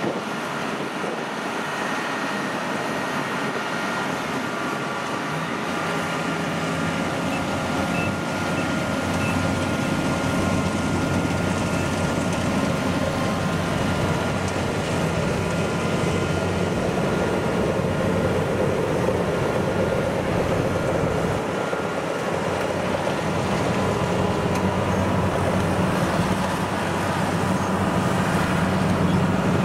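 Kubota crawler combine harvesters' diesel engines running steadily as the machines crawl over a plank bridge, a continuous drone with a steady whine above it. The drone grows louder from about six seconds in as a Kubota PRO688Q combine comes close.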